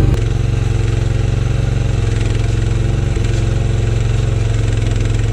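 Engine of a small piece of construction equipment running steadily at an even speed.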